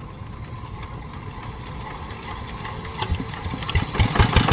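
Single-cylinder diesel engine of a hand tractor being hand-cranked, turning over with a fast even rhythm that builds, then firing about three seconds in with loud, sharp knocks as it catches and starts.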